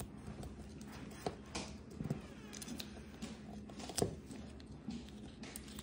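Faint scattered clicks and soft crinkles of small paper candy packets being handled and picked open on a tabletop, with a sharper click about four seconds in, over a faint steady low hum.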